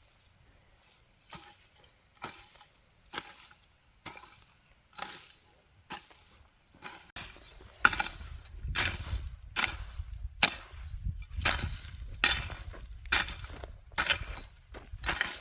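Repeated short scraping or chopping strokes, roughly one a second at first, then louder and more frequent from about halfway through, with a low rumble underneath.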